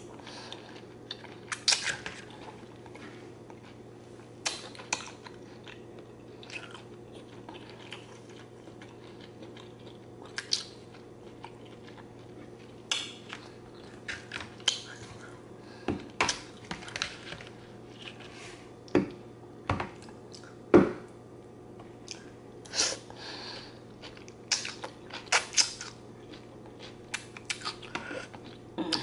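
Chewing and eating shrimp Alfredo with zucchini noodles: wet mouth sounds and sharp smacks at irregular moments, with a fork now and then scraping the pasta in the plate.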